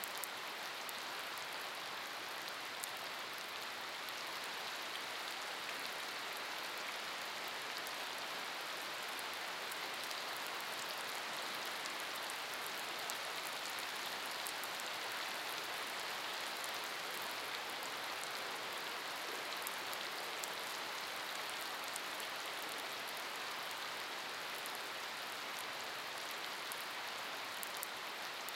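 Steady summer rain falling on wet pavement and puddles: an even hiss with many small ticks of single drops striking the surface.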